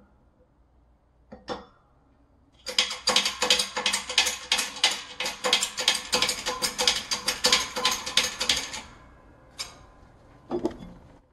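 Rapid metallic clicking and rattling, several clicks a second for about six seconds, from metal parts being worked at a hydraulic shop press on a differential carrier and its tapered roller bearing. A few single knocks come before and after.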